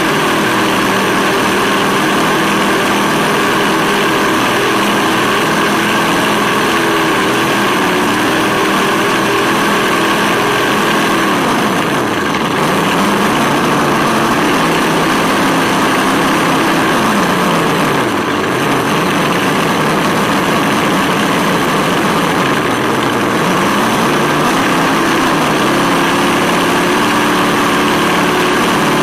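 Simulated V8 engine sound from the RC buggy's onboard sound module, running steadily and three times dropping in pitch toward idle and revving back up as the throttle is eased off and reapplied, over a steady rushing noise from the tyres and drivetrain on asphalt.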